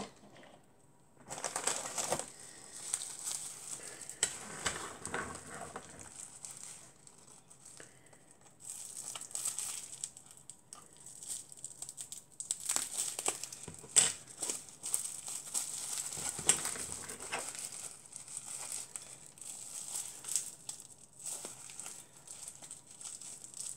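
Plastic bubble wrap crinkling and crackling as a small wrapped diecast model car is handled and unwrapped by hand. It starts about a second in, eases off for a couple of seconds around the middle, then carries on.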